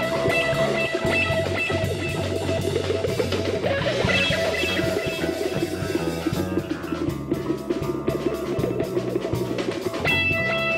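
Rock instrumental music with guitar and a drum kit keeping a steady beat.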